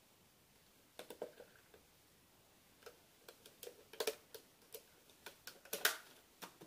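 Thin plastic bottle crackling and clicking as the cut-off, upside-down bottle top is pushed into the bottle body to form a funnel trap. A run of short, sharp clicks begins about a second in, loudest near the end.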